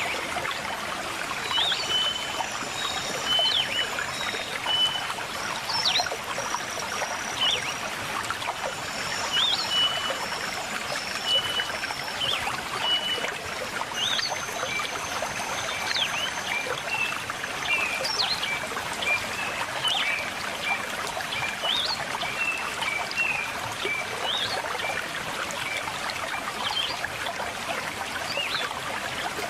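River water flowing steadily, with birds calling over it: runs of short whistled notes on a steady pitch and quick sharp chirps, scattered throughout.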